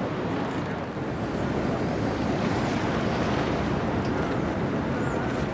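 Waterfront ambience: a steady rush of wind on the microphone over open water, with a low engine drone from a passing vessel. A few faint high chirps come near the end.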